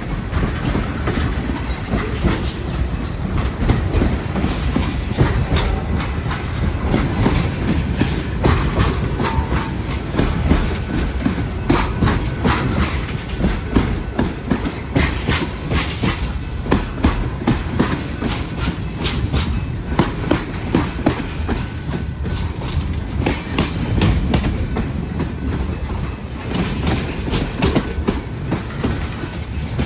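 Freight train of tank cars rolling past, a steady rumble with the steel wheels clicking over the rail joints again and again.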